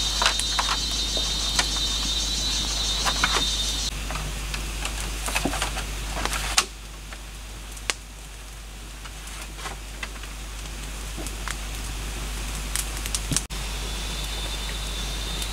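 Wood campfire crackling with scattered sharp pops, under a steady high insect buzz that stops about four seconds in and returns near the end. The background drops suddenly about halfway through, and there is a brief gap near the end.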